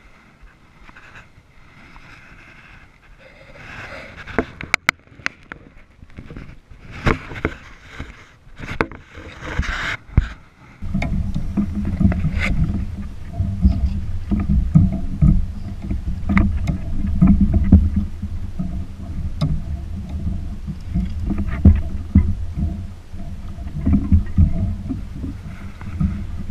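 Water and wind noise around a fishing kayak on open sea, heard close on the kayak's mounted camera: scattered knocks and clicks of gear against the hull, then a loud, steady low rumble that starts abruptly about eleven seconds in.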